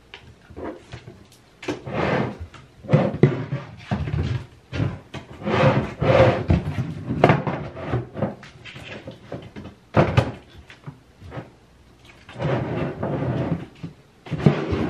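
Toiletry bottles and jars knocking and shuffling as things are moved around inside a bathroom vanity cabinet, in irregular clatters with a sharp knock about ten seconds in.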